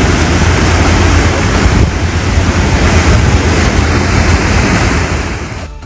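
A boat under way: the rush of churning wake water and a low rumble, with wind buffeting the microphone. It fades out near the end.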